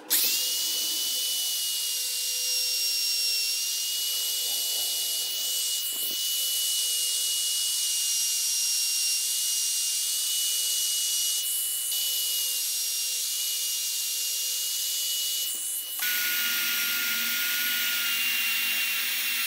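Handheld trim router running at high speed and cutting into a wooden block, with a steady high-pitched whine over a hiss. About sixteen seconds in, the whine drops to a lower pitch.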